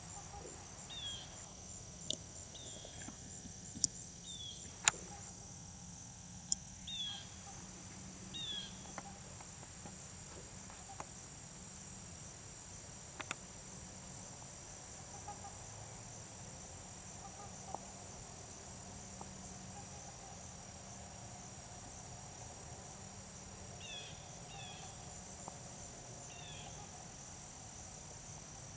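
Outdoor wetland ambience: a steady high drone of insects, with short falling bird chirps now and then and a few sharp clicks about four to seven seconds in.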